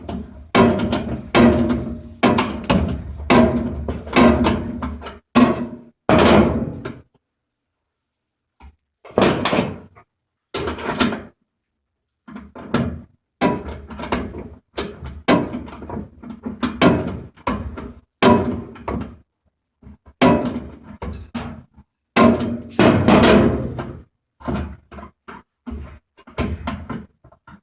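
Wrench and socket working the 3/8-inch screw off a dryer's idler pulley axle, with irregular metallic knocks and clunks against the motor housing and a short pause a third of the way through.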